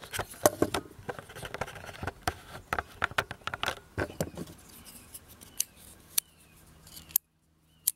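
A Kizer Drop Bear pocket knife being opened and closed by hand: quick metallic clicks and snaps as the blade swings and the clutch lock engages and releases, thick at first and sparser later. The knife is being tried out with its lock spring just moved to a different tension setting. The sound breaks off briefly near the end.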